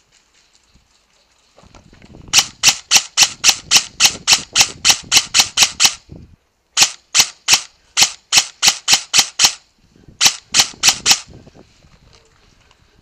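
VFC HK416 airsoft electric gun (AEG) firing three strings of rapid single shots, about four to five a second: a long string of about three and a half seconds, a second of about three seconds, and a short one of about a second.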